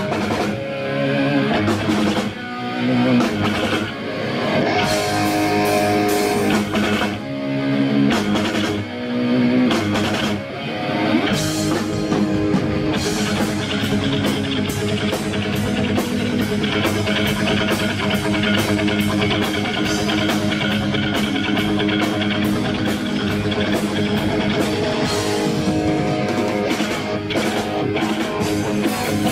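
A live rock band playing: electric guitar riffs over a drum kit. The music is stop-start for the first dozen seconds, then settles into a steady, driving beat.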